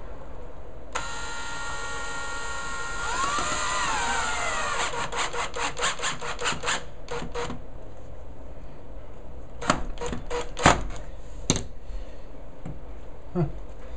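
Panasonic cordless drill driving a screw: the motor starts with a steady whine about a second in, bends in pitch as the screw takes load, then gives a run of regular clicks for a couple of seconds. A few sharp knocks follow near the end.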